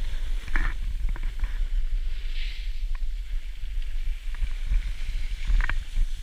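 Wind rumbling on an action camera's microphone while a snowboarder rides downhill, with a couple of short scrapes from the board's edge on the snow, about half a second in and near the end.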